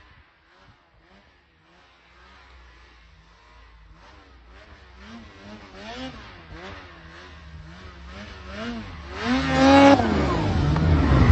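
Snowmobile engine revving as the sled rides through deep snow toward the listener, its pitch rising and falling again and again with the throttle while it grows louder. About nine seconds in it revs up hard and passes close by, the loudest moment, with a spray of snow hissing, and its pitch drops as it goes past.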